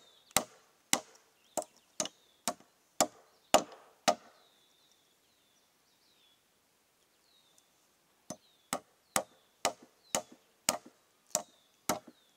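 Hammer driving nails into a treated-lumber board beside a steel rebar stake, about two sharp blows a second, each ringing briefly. The nails are being driven to bend over the stake and lock the board in place. The blows pause for about four seconds in the middle, then resume.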